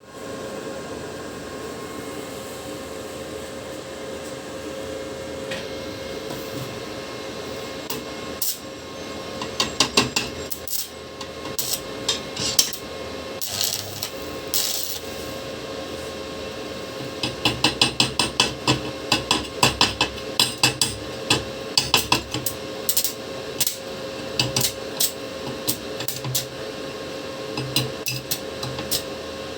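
A steady electrical hum with sharp metallic taps and clinks that start about a third of the way in and come in quick runs of several strikes a second in the second half.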